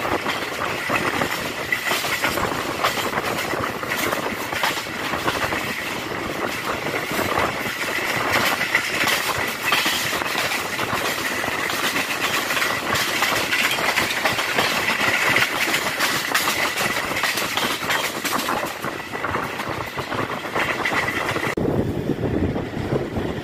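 Passenger train running at speed: wheels clattering over the rail joints with a steady high whine over the rumble. About two seconds before the end the clatter and whine drop away, leaving a lower rushing noise.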